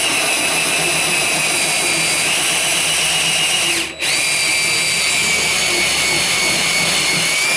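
Electric drill spinning an adjustable circle cutter through 1/8-inch hardboard, a steady motor whine over scraping cutting noise. The drill stops for a moment about four seconds in and starts again.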